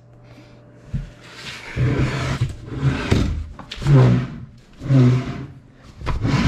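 A man's voice making loud, wordless, repeated sounds about once a second, after a single thump about a second in.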